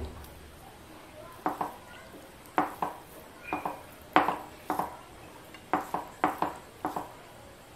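Fingers mixing rice with fried fish on a plate, tapping and scraping against the plate in a run of short clicks, often in quick pairs.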